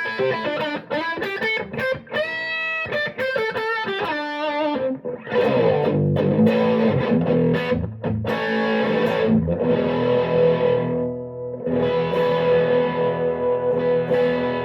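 2008 Epiphone Les Paul Standard electric guitar with Seymour Duncan Pearly Gates pickups, played with distortion. Quick single-note lead lines give way to a few strummed chords left to ring, and the sound stops abruptly near the end. The guitar has a freshly corrected 50s-wired harness with .022 tone caps.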